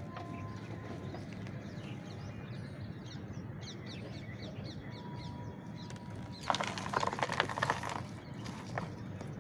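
Small birds chirping in short, quick notes. A little past the middle, a loud burst of crackling, rustling handling noise lasts about a second and a half, from hands working at the rock and soil in a plastic bonsai tray, and a single click follows.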